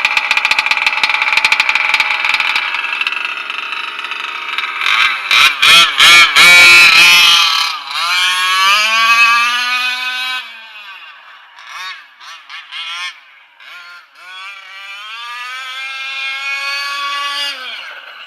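Two-stroke petrol engine of a 1/5-scale Losi Monster Truck XL with a Bartolone big-bore pipe, revving hard. There is a burst of loud throttle blips about five seconds in, then rising runs of revs that fall away as the truck speeds off, and another climb in pitch near the end.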